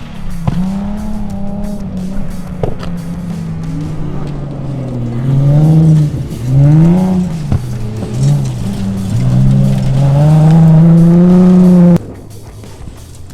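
Car engine driven hard, revving up and down repeatedly as it accelerates and lifts off, then climbing and holding high revs before cutting off suddenly near the end.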